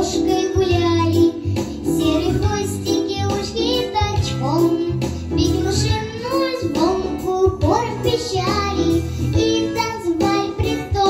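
A young girl singing a children's song into a microphone over instrumental accompaniment.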